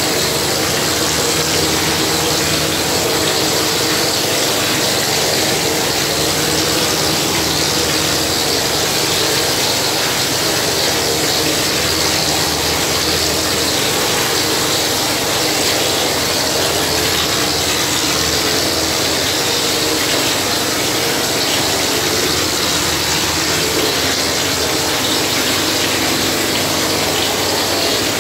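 Gypsum plaster spraying machine running steadily while plaster is sprayed from its hose and spray gun onto a wall: an even, loud hiss over a steady low motor hum, unchanging throughout.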